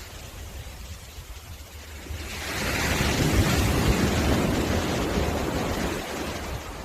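Sea waves on a beach: a lull, then a wave surges in about two seconds in and washes up the shore, easing off near the end.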